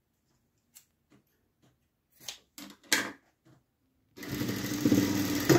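Juita industrial sewing machine starting up about four seconds in and stitching with a steady, even run. Before it there are a few light clicks and rustles of fabric being set under the presser foot.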